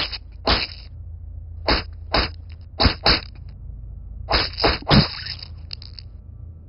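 A series of about nine sharp slashing strokes, each with a short hissing tail, coming singly and in quick pairs and threes over a steady low hum. They are the sound of letters being cut stroke by stroke into plasticine.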